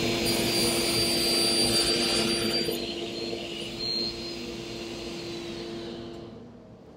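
Felder table saw with a 60-tooth, 250 mm crosscut blade running with a steady hum and hiss while it cuts a thin strip off a laminated chipboard panel. The blade is set only slightly above the board. The sound drops off in the second half, and the hum stops near the end.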